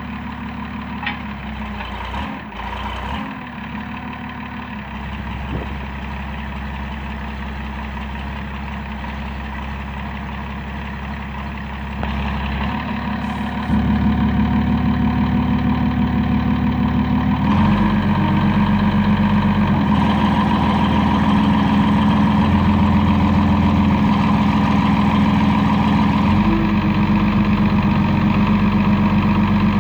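IH 3616 backhoe engine running steadily, then rising in speed and loudness about halfway through and again a few seconds later, as the hydraulics are tested.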